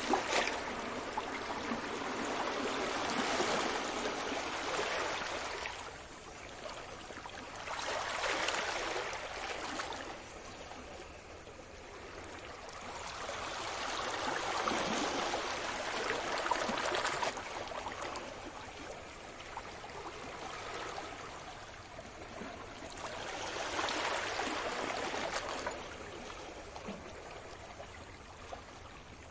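Sea waves breaking and washing up a beach. About four slow surges of hiss each swell up and then ebb away.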